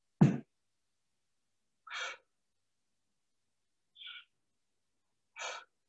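A man's exertion breathing: a brief loud voiced grunt just after the start, then three short, sharp exhales about a second and a half apart, in time with the reps of a weighted-backpack lat pull.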